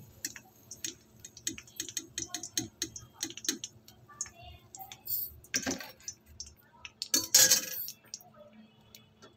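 Oil crackling and popping in an iron kadai as a perforated steel skimmer lifts fried boiled eggs out, with scattered small ticks and clinks. Two louder clatters of the skimmer against the pan come about five and a half seconds in and again around seven seconds.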